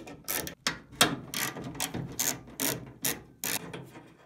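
Socket ratchet clicking in repeated short strokes, about two a second, as it loosens the 10 mm bolts holding a truck door's window regulator.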